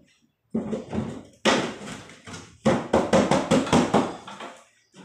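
Metal casing of a window-type air conditioner being handled: a couple of separate knocks, then a quick run of about seven rattling knocks a little over halfway through.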